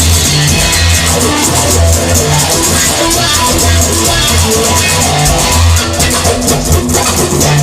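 Instrumental rock music: guitar with bass and a drum kit playing a steady beat.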